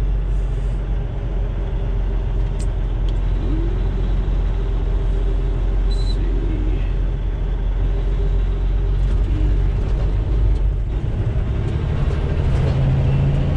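Semi truck cab interior while driving: a steady low diesel engine drone mixed with tyre and road noise. The low engine hum grows stronger near the end.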